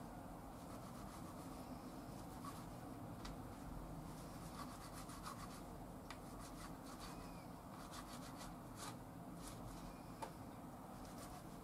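Kitchen knife cutting thin slices of raw pork on a wooden cutting board: faint scraping of the blade with scattered light taps on the board.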